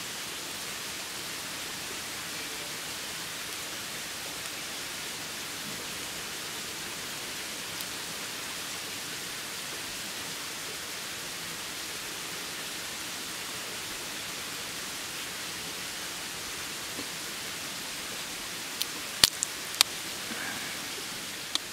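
Steady hiss-like background noise. Near the end, a quick run of sharp cracks as a boiled mitten crab's shell is broken apart by hand.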